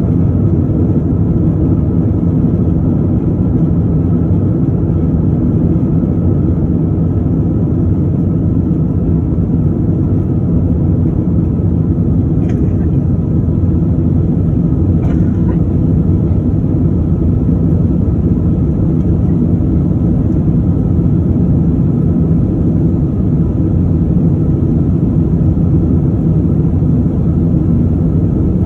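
Steady low rumble of jet engines and rushing air heard inside an airliner cabin as the plane climbs out after takeoff.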